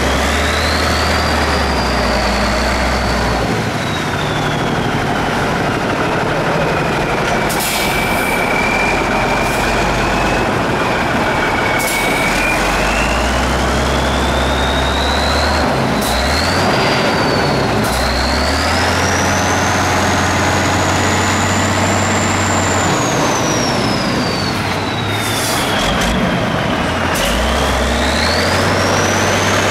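Heavy turbo-diesel truck engine running hard and changing revs off-road, with a high whistle that rises and falls several times. A few short sharp noises cut in now and then.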